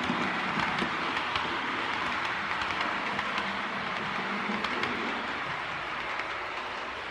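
Märklin HO-scale model TEE train rolling along the layout track: a steady rolling rattle with light irregular clicks that slowly fades as the train moves away.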